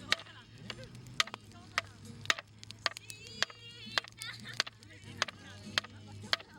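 Wood bonfire crackling: sharp, irregular pops about twice a second over a faint steady low hum.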